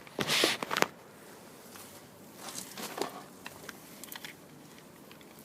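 Handling noises from work on the air conditioner's wiring: a short loud rustle near the start, then a few faint clicks and scrapes.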